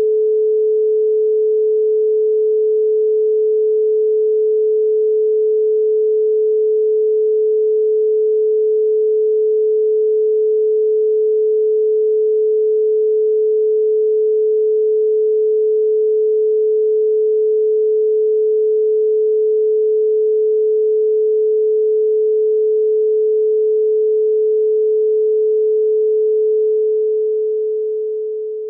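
A pure 432 Hz sine tone, one steady unbroken pitch, held at a constant level and then fading out over the last couple of seconds.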